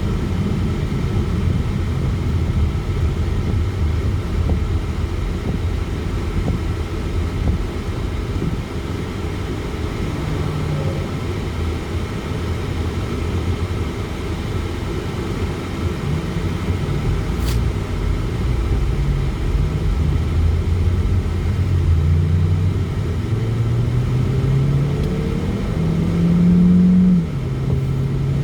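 Car driving, with steady engine and road rumble heard from inside the vehicle. Over the last several seconds the engine pitch climbs as it accelerates, then drops suddenly near the end.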